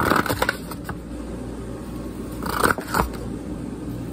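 A fidget spinner scraping and sawing at the rim of a foam cup, giving short bursts of squeaky, crunchy rubbing. One burst comes at the start and another about two and a half to three seconds in, over a low steady hum.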